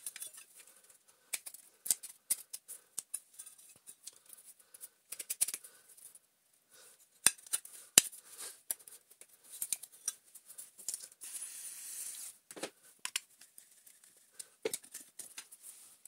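Metal parts of a vacuum cleaner motor being handled and fitted together by hand: scattered light clicks and clinks, with two sharper knocks about seven and eight seconds in and a second of scraping about three-quarters of the way through.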